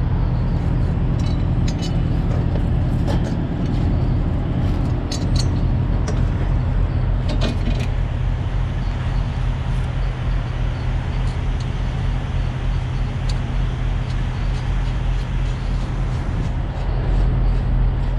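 A diesel truck engine idling steadily, with a few light metallic clinks from hand tools and bolts here and there.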